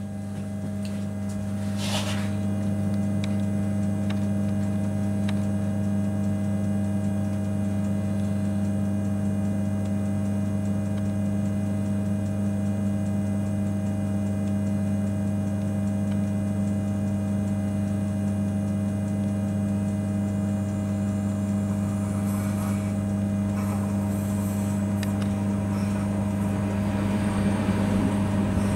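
Steady low electric hum with a higher overtone inside an electric train's cab, typical of the transformer and auxiliary equipment running. In the last few seconds a passing electric multiple unit on the next track adds a rising rumble and hiss.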